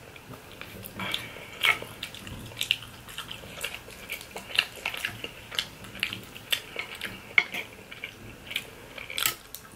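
Fork and knife cutting through saucy lasagna and knocking against the baking pan: a run of short, wet clicks and taps, roughly one a second.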